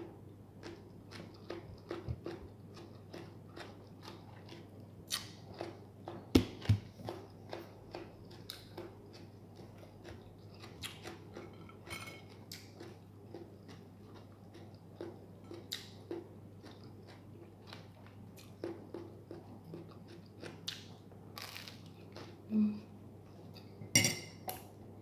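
A person chewing and biting into a tomato sandwich close to the microphone: irregular small wet mouth clicks and soft crunching, with a few louder bites or knocks about a quarter of the way in and near the end.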